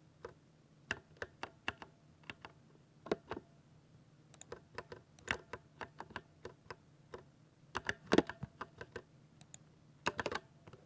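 Typing on a thocky 60% mechanical keyboard: uneven keystrokes in short runs, with a cluster of louder strokes a little after eight seconds and a quick run near the end.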